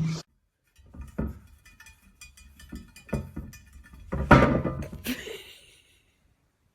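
A few scattered knocks and thumps, the loudest about four seconds in, then nothing.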